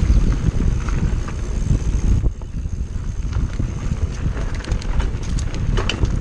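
Wind buffeting the microphone over the rumble of an Orbea Laufey hardtail mountain bike's 27.5 x 2.4 tyres rolling down a rocky dirt trail, with scattered clicks and rattles from the bike that bunch up near the end. The rumble eases briefly a little past two seconds in.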